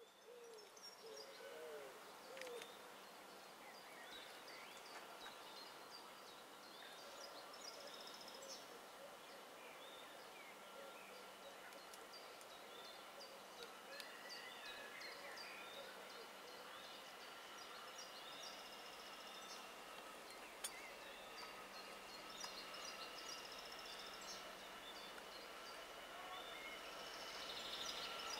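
Faint birdsong from several birds: many short chirps and whistles scattered throughout, over two steady high-pitched tones.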